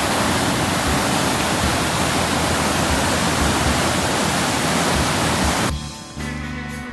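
Water rushing through a dam's concrete outlet channels: a loud, steady roar. It cuts off abruptly about six seconds in, and guitar music takes over.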